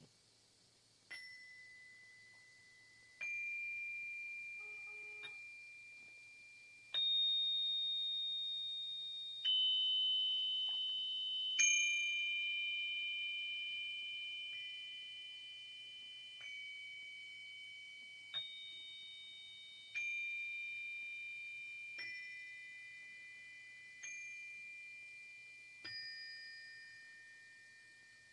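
Slow, sparse relaxation music of high bell-like chime notes, struck one at a time about every two seconds, each ringing on and slowly fading.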